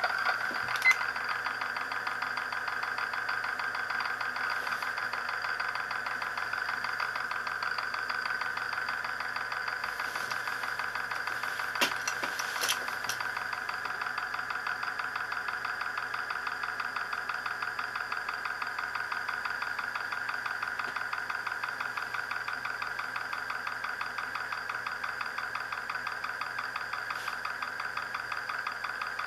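DIY Euler's disc, a polished tungsten carbide ring with a pressed-in brass weight, spinning on a glass mirror early in its spin while it still stands upright like a top. It makes a steady, rapidly pulsing whir as its rim runs on the glass, a strange noise. A couple of sharp ticks come about a second in and near the middle.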